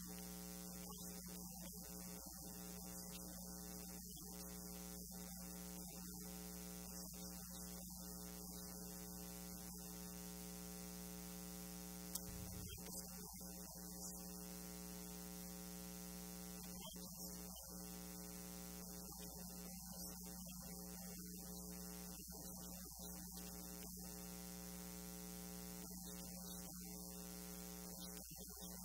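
Steady electrical mains hum and buzz on the recording, with a single faint click about twelve seconds in.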